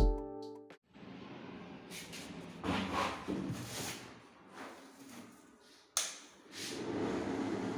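Handling sounds and a sharp click about six seconds in. Then a Luminous Vento Deluxe 250 mm exhaust fan starts running with a steady airy noise and a low hum.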